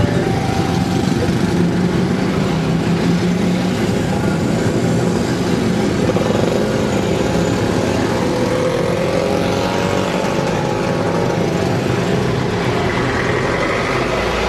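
Busy road traffic: many small motorcycles and scooters running close by with buses among them, a dense steady mix of engines with one engine note rising about halfway through.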